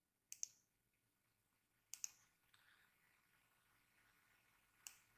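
Faint computer mouse clicks over near silence: two quick double clicks, then a single click near the end.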